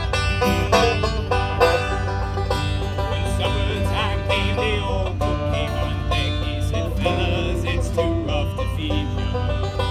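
Banjo and acoustic guitar playing together in an instrumental passage without singing, plucked notes ringing over a steady low hum.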